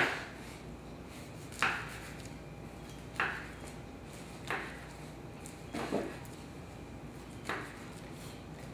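A kitchen knife slicing through a nori-wrapped sushi roll and knocking on a wooden cutting board. About one cut every second and a half, six in all.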